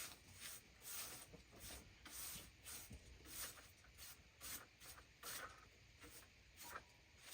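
Faint, repeated scratchy rubbing strokes, about two a second and somewhat irregular, as dirt is brushed off the bark of a maple log so that it will not dull a freshly sharpened bandsaw blade.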